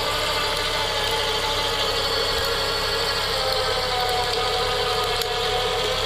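Tractor engine running steadily, with a faint whine that drifts slowly lower in pitch.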